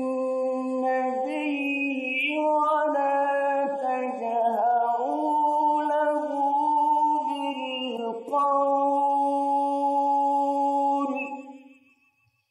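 A man reciting the Qur'an in melodic Arabic style, drawing a verse ending out into long, ornamented held notes that step up and down in pitch, then fading out near the end.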